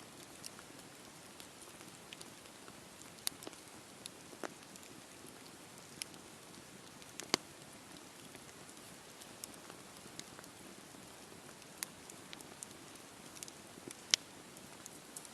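Wood campfire burning: a steady soft hiss with scattered sharp crackles and pops, the loudest about seven seconds in and near the end.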